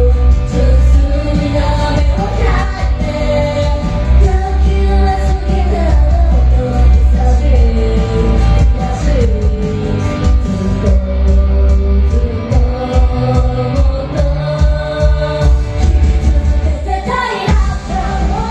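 Pop-rock song performed at a live show: singing over a loud band sound with heavy bass and a steady beat.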